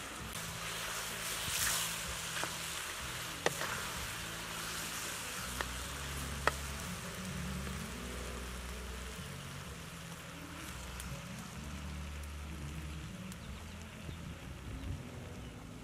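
Green vegetables sizzling in sauce in a steel wok as they stir-fry, with a few sharp clicks of a wooden spatula against the pan in the first half.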